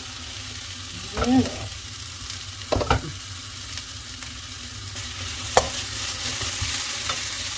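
Chili paste, shallots, garlic and lemongrass sizzling in a frying pan, a steady hiss that grows a little louder once a spatula starts stirring them about five and a half seconds in. Sharp knocks sound about three seconds in and again as the stirring starts.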